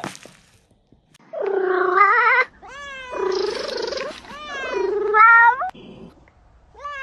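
Domestic cat meowing repeatedly: a run of five or six drawn-out meows starting about a second in, some wavering in pitch, others sliding down or rising at the end.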